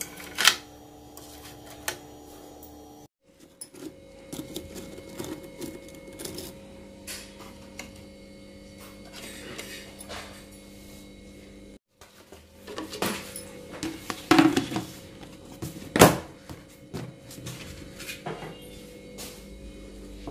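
Light clicks and knocks of crockery and plastic containers being handled on a kitchen counter, over a steady low hum, with a sharper knock about 16 seconds in.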